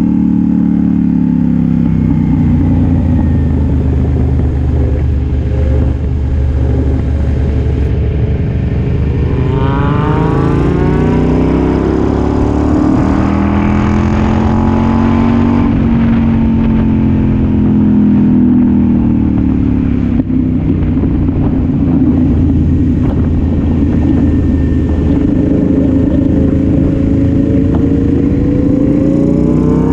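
Sport motorcycle engine with an aftermarket exhaust, heard from the bike itself while riding. The revs fall over the first couple of seconds, climb steeply about ten seconds in, settle, then rise again near the end.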